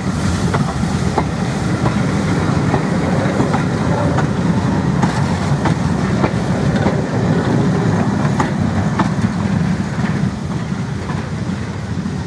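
Passenger coaches of a heritage train rolling past at close range: a steady rumble of wheels on rail with scattered sharp clicks. The sound eases slightly near the end as the last coach goes by.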